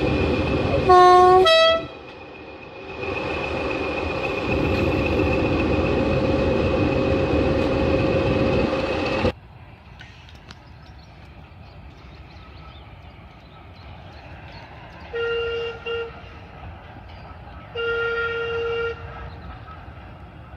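Train horn: two short, very loud blasts on two different notes about a second in, over the steady noise of a train running close by. After a sudden cut the horn is heard quieter, giving two short toots and then one longer blast near the end.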